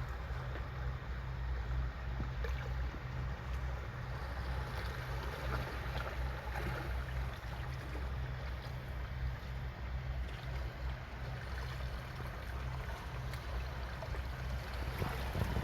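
Mountain valley stream rushing steadily, with wind buffeting the microphone in an uneven low rumble.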